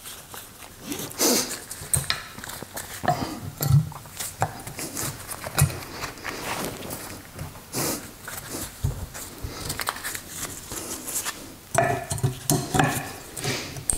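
New brake pads and a steel caliper bracket being handled and fitted together: irregular clinks and knocks of metal parts.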